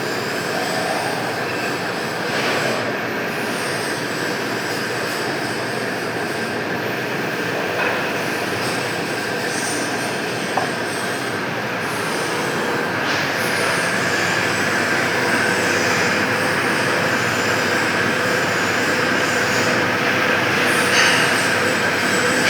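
Pipe-cutting lathe running and cutting metal: steady machine noise with held tones and a thin, high metallic squeal over it, and a few light knocks.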